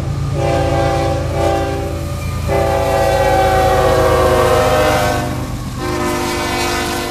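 Union Pacific diesel freight locomotive sounding its multi-tone air horn in long blasts as it passes, the horn's pitch dropping slightly as it goes by, over the low rumble of the engine and rolling cars. The horn breaks off briefly about five seconds in, then sounds again.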